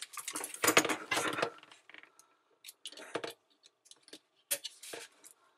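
Yellow-handled cutters trimming plastic nubs off a Bosch dishwasher's pump sump. A rustling clatter of handling in the first second and a half gives way to scattered sharp clicks and snips.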